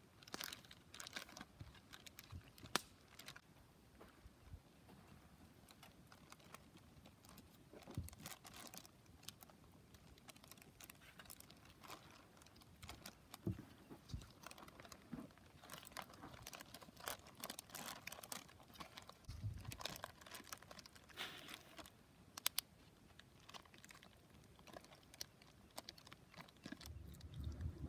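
Faint crinkling of a plastic zip-top bag being handled and pressed shut, with scattered small clicks from the zip seal. A low rumble comes in near the end.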